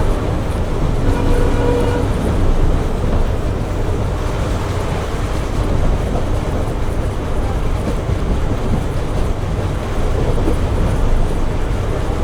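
Passenger train running, heard from on board: a steady, loud rumble of the moving train, with a brief pitched tone about a second in.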